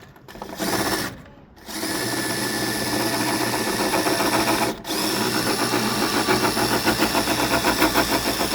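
Cordless impact driver driving a screw, with its rapid hammering rattle. A short first burst is followed by a brief pause, then a long continuous run with one momentary let-up partway through.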